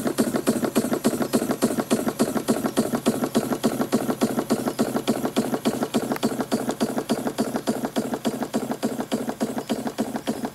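Scale-model vertical marine steam engine running at an even speed, its cylinders giving a quick steady train of exhaust chuffs and mechanical clatter, about six beats a second.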